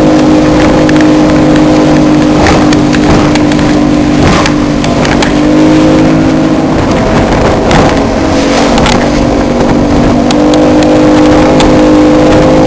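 Outboard motor of a 17-foot center-console boat running at speed through rough chop, its pitch drifting slightly down and up as the hull rides the waves. Spray and wave slaps hit the boat several times over a steady rush of water and wind.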